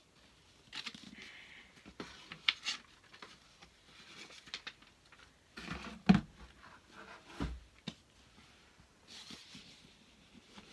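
Cardboard boxes being handled: rustling, scraping and light taps of cardboard, with two dull thuds a little past the middle.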